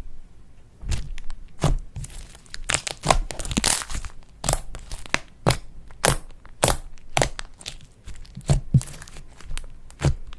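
Slime being worked by hand, with irregular sharp crackles and pops, about two a second, and a denser run of crackling a few seconds in.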